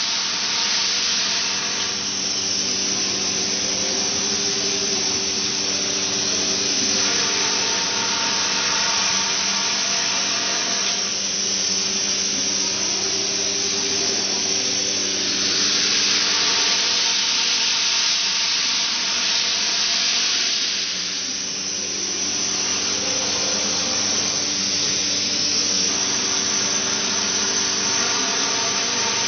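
Industrial CNC machine running: a steady motor hum under a strong high-pitched hiss that swells and eases every few seconds.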